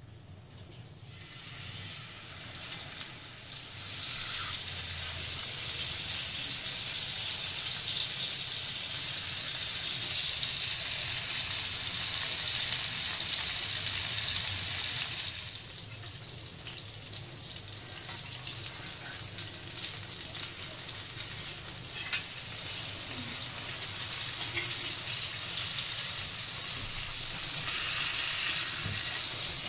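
King fish (surmai) steaks shallow-frying in hot oil in a cast-iron skillet: a steady, dense sizzle. It swells over the first few seconds and drops back a little about halfway through. One sharp click is heard later on.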